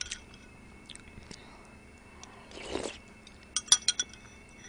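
Metal spoon clinking against a ceramic soup bowl: a few light taps early on, then a quick run of about four sharper clinks near the end. In between, a short slurp of broth or noodles.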